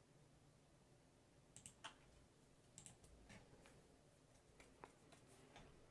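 Faint computer mouse clicks: a handful of single clicks, spaced irregularly, starting about a second and a half in.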